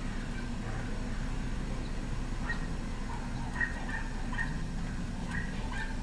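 Small dogs barking from behind a house window: a run of quick, short barks starting about two and a half seconds in, over a steady low background rumble.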